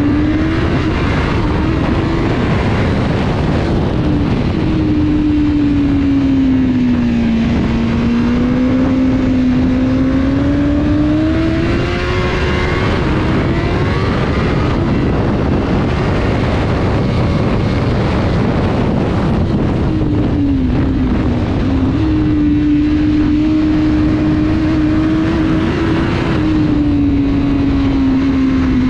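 Motor vehicle engine running under way, its note steady and loud, slowly sagging and rising in pitch as the speed changes, over continuous wind and road noise.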